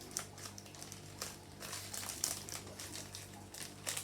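Foil Pokémon booster-pack wrapper crinkling as the cards inside are handled and pulled out, a run of irregular crackles and rustles.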